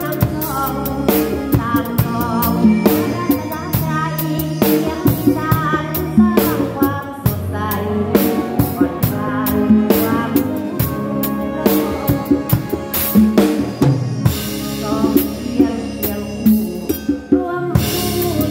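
Drum kit played in a live band rehearsal: steady snare and bass-drum beats with frequent cymbal strokes, under melodic lines from the rest of the band.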